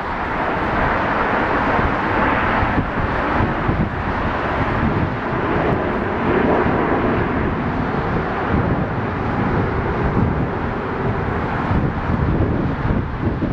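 Formation of Canadair CT-114 Tutor jets of the Snowbirds flying past, a steady rushing jet noise, with wind on the microphone.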